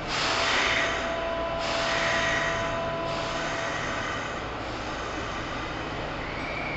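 Heavy nasal breathing close to the microphone, long hissing breaths in and out about every one and a half seconds, over the steady hum of a Kintetsu 2800 series electric train standing at the platform.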